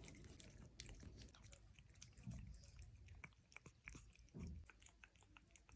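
Cat eating a lickable puree treat: quiet, irregular wet licking and smacking clicks, with a couple of soft low thumps.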